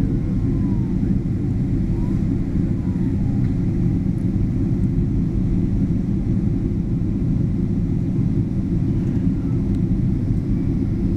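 Airliner cabin noise: a steady, unbroken low rumble of the engines and rushing air, heard from inside the passenger cabin.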